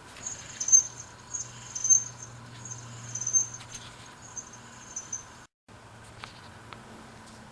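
Sanyo 6V 2.4W bicycle hub dynamo turning with a high-pitched squeak that repeats about once or twice a second, over a faint low hum. It is an abnormal noise that greasing the bearings has not cured. The sound cuts out briefly about five and a half seconds in, and after that only faint clicks are left.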